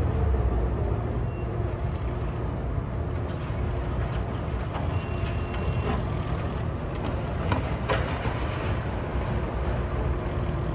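Steady low rumble of street traffic, with two sharp knocks close together about three-quarters of the way through.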